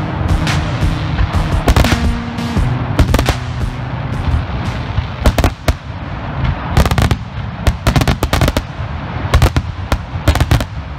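A 500-gram consumer firework cake firing crackle mines and crackle breaks: dense crackling with many sharp cracks, in quick clusters. Music with held low notes sits underneath and stops about three seconds in.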